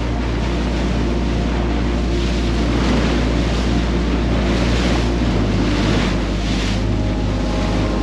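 Tour boat under way in choppy sea: a steady engine drone under the rush of water along the hull and wind buffeting the microphone. The water rush swells twice.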